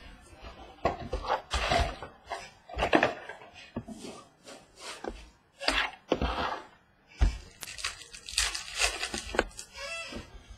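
Trading-card hobby box and foil card packs being handled on a table: a run of short separate rustles, crinkles and light taps as the packs are tipped out and picked up.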